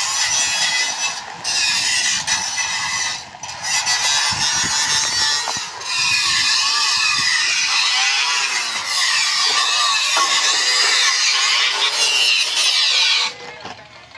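A power tool running with a loud, shrill, wavering squeal, easing off twice briefly and stopping about 13 seconds in.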